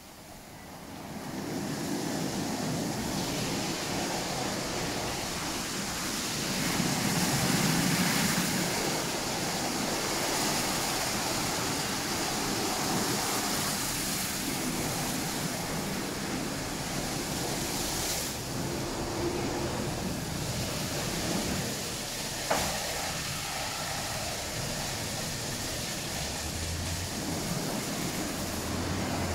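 Rollover car wash gantry running its rotating brushes over a car amid water spray, a steady rushing wash; it rises about a second in and holds, with one sharp knock about three quarters of the way through.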